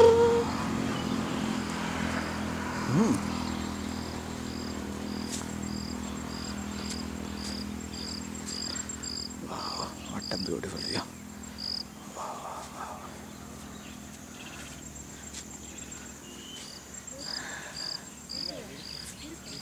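Insect chirping about twice a second in an even rhythm, in two long runs, over a steady high-pitched buzz. A sharp knock at the very start, and a low hum that fades over the first few seconds.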